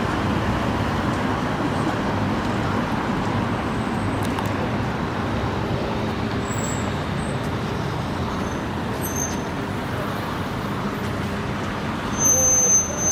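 Steady road traffic noise from vehicles on a busy street, with a brief high-pitched squeal near the end.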